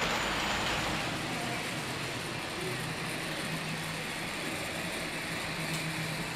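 Steady background noise of a model railway exhibition hall: a constant low hum under an even hiss, with no distinct events.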